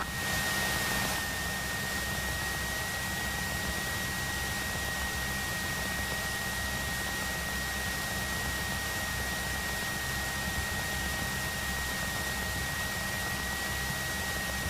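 Cessna 172 engine idling while the aircraft holds on the runway, heard through the headset intercom as a steady hiss over a low hum. A thin, constant high whine sits on top.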